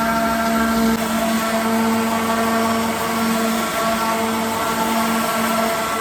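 Electric sander running steadily, its motor humming, while sanding a wooden tabletop with fine 240-grit sandpaper.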